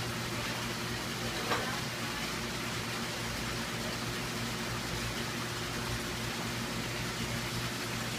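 Steady water-circulation noise with a low electrical hum, as from aquarium pumps and filtration running. There is a single brief click about a second and a half in.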